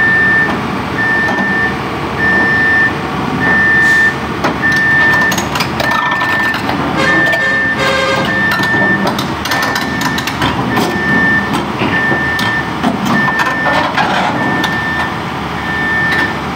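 Backup alarm beeping evenly, about once every 1.2 seconds, over the steady running of heavy-equipment diesel engines as a tracked excavator is loaded onto a lowbed trailer.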